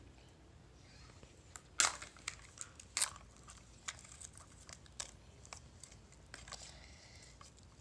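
Plastic wrapping crinkling and tearing as a small toy packet is opened by hand: irregular crackles, with the sharpest ones a little under two seconds and about three seconds in.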